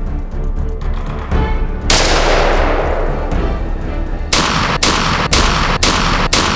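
Shotgun blast about two seconds in with a long echoing tail, then a quick run of about five sharp shot-like cracks roughly half a second apart, over background music.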